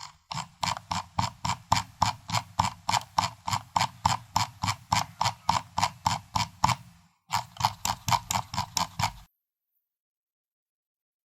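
Computer mouse scroll wheel being turned, its notches clicking in a quick even run of about five clicks a second. It pauses briefly about seven seconds in, clicks again, and stops a little after nine seconds.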